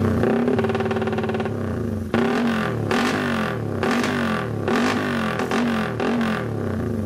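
Motorcycle engine revving through an aftermarket ORBR exhaust can. It holds a fairly steady pitch for about two seconds, then the throttle is blipped in quick repeated rises and falls, about two a second.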